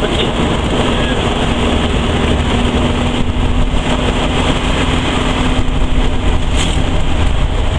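Dune buggy driving along: a loud, dense rumble of engine and travel noise, with a steady engine note that creeps slightly up in pitch.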